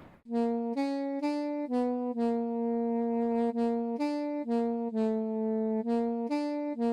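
Background music: a solo wind instrument plays a melody of separate notes, about two a second, with one longer held note about two seconds in.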